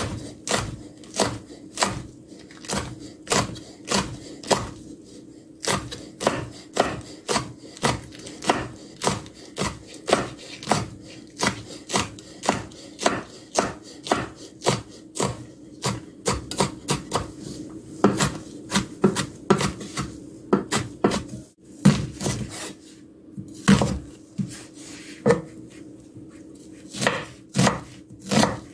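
Chef's knife chopping green hot chili peppers on a wooden cutting board: a steady run of sharp knife strikes on the wood, about two a second, moving on to an onion near the end.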